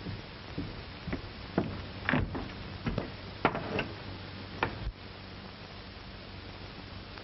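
Footsteps on a wooden floor and a door being opened and pulled shut, a run of knocks and latch clicks that stops about five seconds in. Underneath is the steady hiss and low hum of an old film soundtrack.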